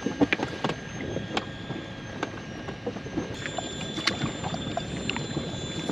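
Sea water lapping and slapping against the hull of a drifting inflatable boat, with scattered small knocks and clicks.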